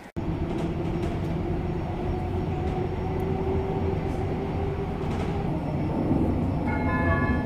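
Cabin sound of a Prague tram on the move: a steady low rumble with a held hum over it. A higher ringing tone comes in near the end.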